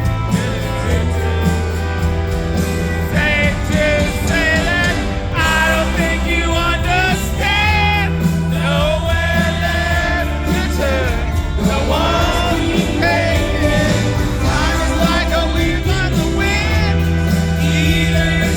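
Rock band playing a song live, a lead singer's voice over the full band.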